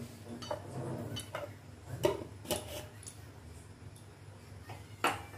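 Dried red chillies crackling in hot oil in a kadai: scattered sharp ticks and pops, the loudest about two seconds in and near the end, over a low steady hum.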